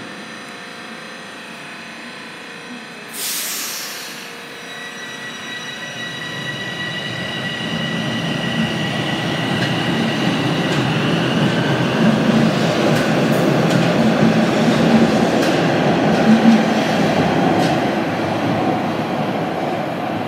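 Bombardier Toronto Rocket subway train departing the platform: a short hiss of air about three seconds in, then a high electric motor whine as it pulls away. The wheels rumble and clatter louder as the cars pass, with a few clicks, then ease off near the end.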